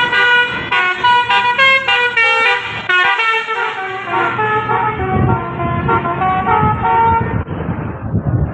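Bus telolet basuri horn playing a tune of stepped notes, which stop about seven and a half seconds in. Engine and road noise from the bus grows louder over the last few seconds.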